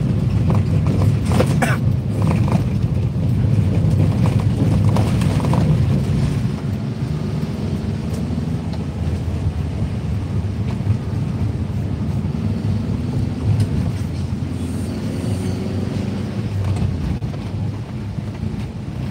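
Low rumble of a moving car heard from inside the cabin: engine and tyres on a wet road. It eases off a little about six seconds in.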